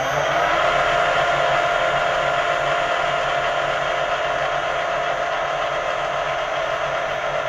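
Small metal lathe's spindle motor and gearing running up to speed in the first second, the whine rising in pitch, then running steadily.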